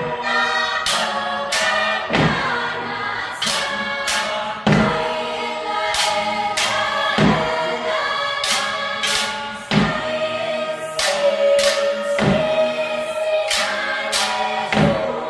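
Mixed choir singing a cappella in full chords, with a steady beat of wooden sticks clacking about every two-thirds of a second and a deeper thump of sticks struck on the floor about every two and a half seconds.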